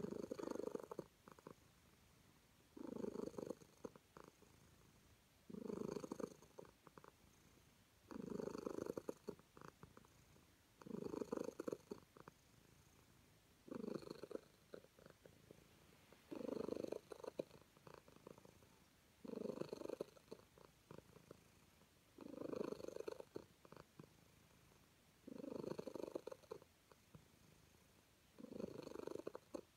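Calico cat purring close up while being petted, the purr swelling and fading in regular waves about every three seconds, each swell lasting a second or so.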